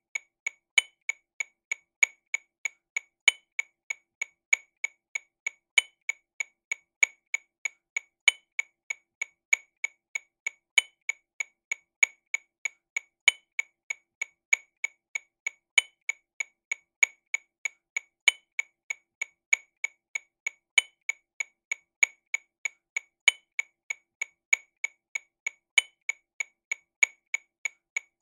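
TAMA Rhythm Watch RW200 metronome click sounding sixteenth notes at 48 BPM, a steady run of sharp clicks about three a second. A louder accented click falls on each beat, about every second and a quarter.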